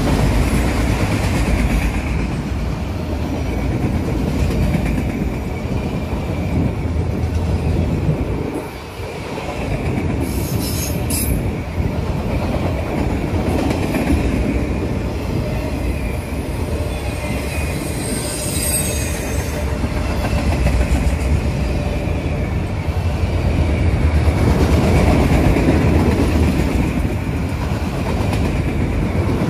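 Freight train's autorack cars rolling past at close range: a steady rumble of wheels on rail. Brief high-pitched wheel squeals come about ten seconds in and again a few seconds later, and the train grows louder again near the end.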